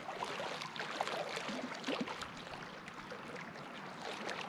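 Running water trickling and splashing steadily, with many small ticks and splashes.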